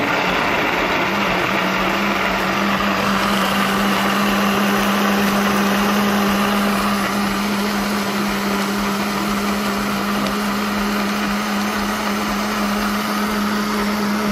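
Mondial electric blender running steadily at speed, grinding chopped fresh coconut with water, its motor giving a steady hum under the whir of the blades.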